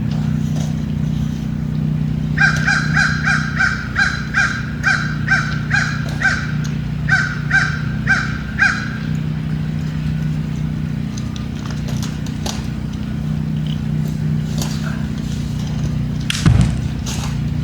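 A bird giving a fast series of short, repeated calls, roughly two to three a second, for about six seconds, over a steady low hum. A single sharp knock sounds near the end.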